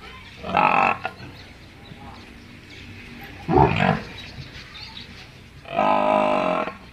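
Water buffalo calling: three loud bellows, one about half a second in, one past the middle, and a longer, steadier-pitched one near the end.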